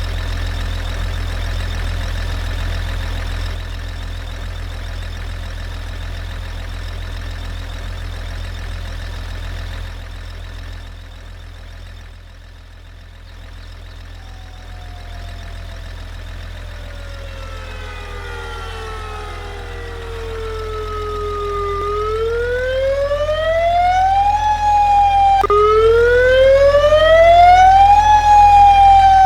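A steady low engine rumble dips about ten seconds in. Then a siren fades in and wails: its pitch slides slowly down, then rises and falls in cycles of a few seconds, growing louder toward the end.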